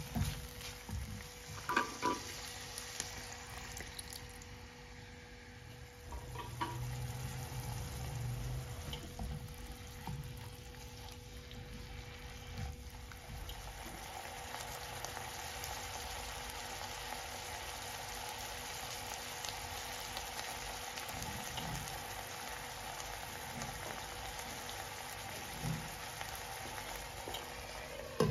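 Chicken strips frying in oil in a nonstick frying pan, with a spatula tapping and scraping the pan a few times early on. Later the chicken simmers in a thin liquid, a steady sizzling and bubbling.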